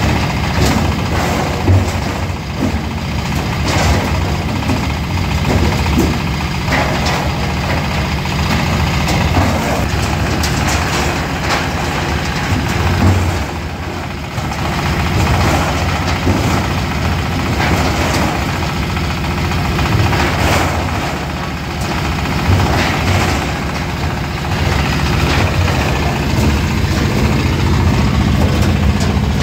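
13 hp diesel engine running steadily, driving an oil-palm fruit stripping machine, with irregular knocks and clatter over the engine note.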